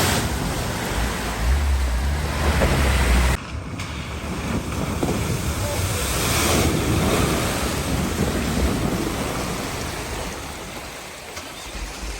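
Water surging and splashing as a van drives through a deep flooded ford, with wind buffeting the microphone. The noise drops off abruptly a few seconds in, then swells again and slowly fades.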